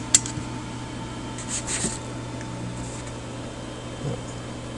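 Steady low electrical hum with a faint high whine, broken by one sharp click just after the start and a brief rustle of handling about one and a half to two seconds in.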